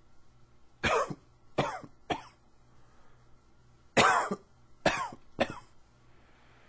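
A man coughing in two bouts of three coughs each, the bouts about three seconds apart. It is an allergy cough.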